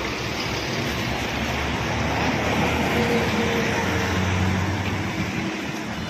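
Diesel engine of a BharatBenz sleeper coach idling close by, a steady low drone that swells a little around the middle and eases off near the end.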